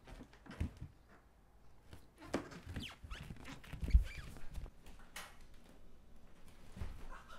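Scattered knocks and scraping noises, with one heavy thump about four seconds in.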